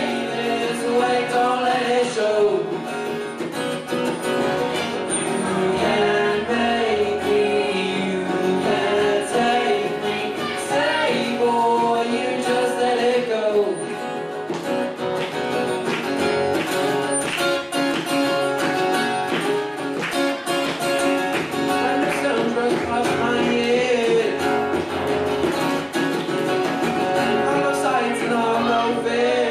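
Acoustic pop-rock song performed live: two acoustic guitars strummed with a teenage boy singing the lead vocal.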